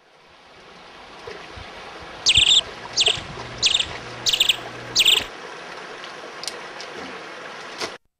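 A bird calling five times in short, loud, high calls about two-thirds of a second apart, over a steady outdoor background of running water. The sound cuts off suddenly near the end.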